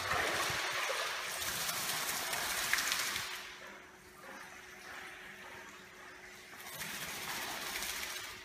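Water splashing and sloshing for about three seconds as a dog wades up out of a hydrotherapy pool onto the step. A second, shorter burst of splashing comes near the end.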